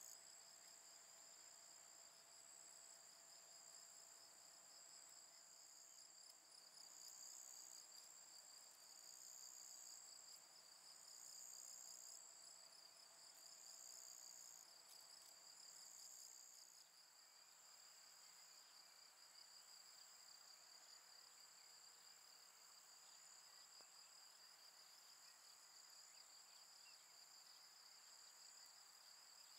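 Faint, continuous high-pitched insect chirring with a fine, rapid pulse, and a second, higher song swelling about every two seconds through the first half.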